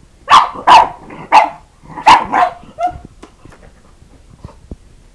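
Pug barking: about six sharp barks in the first three seconds, then faint clicks and taps as it paws at the laptop keyboard.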